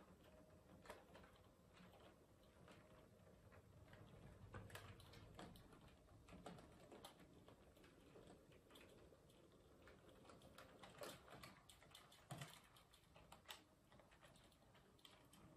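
Model railway tank locomotive reversing slowly with its coaches over pointwork: faint, irregular clicks and ticks of the wheels crossing rail joints and a single slip crossover, over a faint low motor hum.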